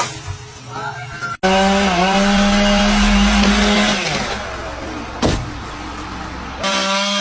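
Chainsaw engine running at a steady high pitch, dipping briefly soon after it starts and easing off after a couple of seconds. A single sharp knock comes about five seconds in, and the saw picks up again near the end.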